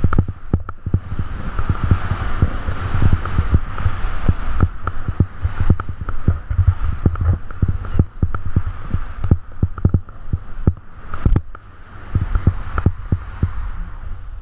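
Wind rumbling on an action camera's microphone as a skier descends through powder, with the skis hissing through the snow and frequent knocks and thumps from bumps in the terrain. The sound dips briefly about eleven seconds in, then picks up again.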